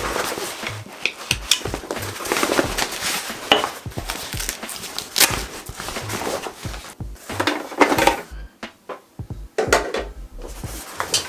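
Stiff recycled sailcloth rustling and crinkling in irregular bursts as the bag is handled and folded, with scattered clicks and light knocks against the table.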